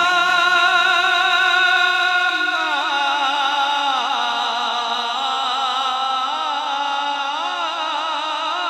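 Male naat reciter singing a wordless, drawn-out vocal passage into a handheld microphone: a long held note, then about two and a half seconds in, wavering, ornamented turns in pitch that carry on to the end.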